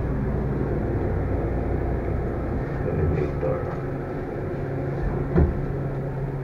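Passenger elevator car travelling down, a steady mechanical hum with a deep rumble that eases off about halfway as the car slows. A single knock about five seconds in.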